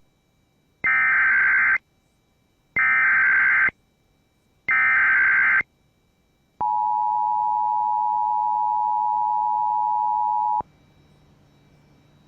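Emergency Alert System broadcast tones: three bursts of about a second each of SAME digital header data, then the two-tone attention signal (853 and 960 Hz together) held steady for about four seconds and cutting off suddenly. It is the standard lead-in to an alert announcement.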